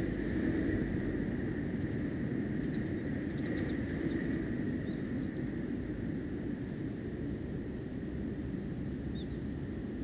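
Steady low outdoor rumble, like distant traffic, with a few faint short high chirps scattered through the middle and near the end.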